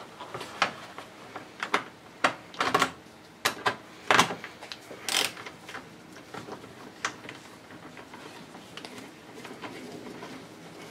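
Irregular clicks and knocks of an air intake boot and hand tools being handled and fitted, a quick run of sharp ones over the first five seconds or so, then fainter clatter.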